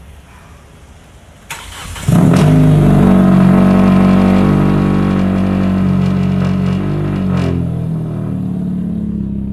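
Hyundai Elantra engine being started: a brief crank about a second and a half in, then it catches with a loud flare and settles into a steady fast idle that slowly eases down in loudness.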